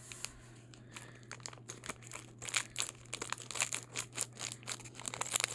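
Foil blind-bag wrapper crinkling and tearing as it is worked open by hand, in quick irregular crackles starting about a second in.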